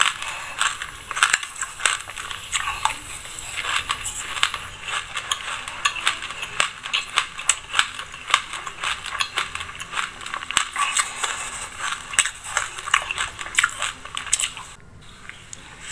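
Close-miked chewing of a mouthful of black sesame seeds: dense, rapid crunching and crackling, with a brief pause near the end.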